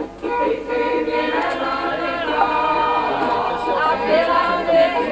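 A group of voices singing together, several parts at once, as a choir.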